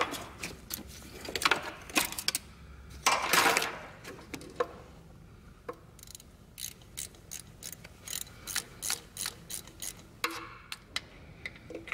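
Hand ratchet wrench clicking as a bolt is worked loose. A louder rattling burst comes about three seconds in, then steady clicking at roughly three clicks a second in the second half.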